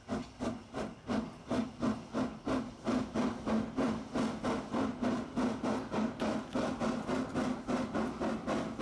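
Saddle-tank steam locomotive working hard as it pulls a train of goods wagons away, its exhaust chuffing in sharp, even beats about three a second that start suddenly at the beginning.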